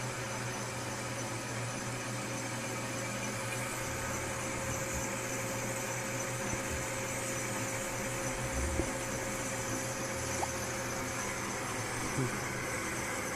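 Metal lathe running steadily while turning down the lip of a piston: a constant hum with a steady tone and a few faint clicks.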